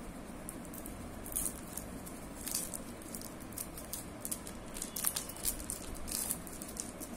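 A thin plastic wrapper crinkling and crackling in quick, irregular bursts as fingers peel and crumple it.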